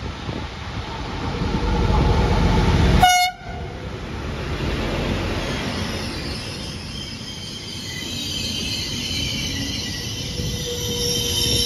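An Intercity train hauled by a D445 diesel locomotive approaches and passes, growing louder up to a short horn blast about three seconds in. Its coaches then roll by, with a high-pitched wheel squeal from about halfway.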